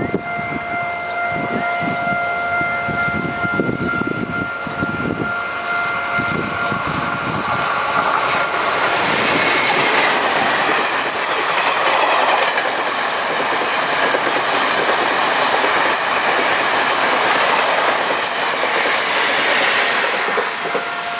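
Taiwan Railways E1000-series Tze-Chiang express passenger cars passing close by: wheels clattering over the rail joints, then a loud rushing rail noise that builds about eight seconds in and holds. The level crossing's warning bell rings a steady tone for the first several seconds before it is drowned out by the train.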